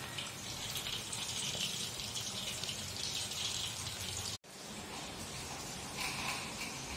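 Masala-coated fish pieces sizzling and crackling as they shallow-fry in hot oil in a kadai. The sound cuts out abruptly for an instant about four seconds in, then the steady hiss resumes.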